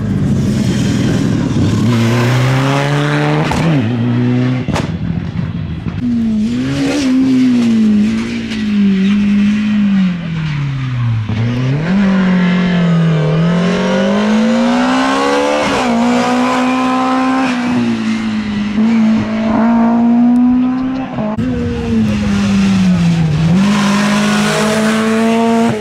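Rally cars, among them a BMW E30 and a Volkswagen Golf Mk3, driving hard past one after another, engines revving high. The pitch drops several times as they brake for corners and climbs again as they accelerate through the gears.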